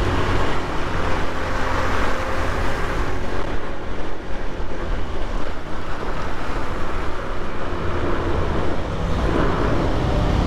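Motorcycle riding noise: steady wind buffeting on the microphone over the bike's engine and road noise.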